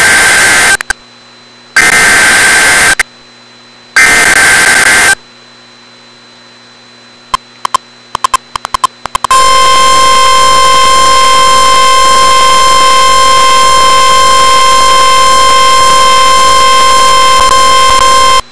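Emergency Alert System activation for a severe thunderstorm warning: three harsh, screechy bursts of SAME digital header data, each about a second long and two seconds apart. After a short gap with a few clicks, a loud, steady warning alarm tone starts about nine seconds in and holds.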